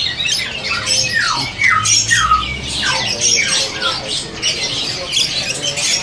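Many caged songbirds calling and chirping at once, a dense mix of harsh calls and chirps, with short falling whistled notes repeated several times.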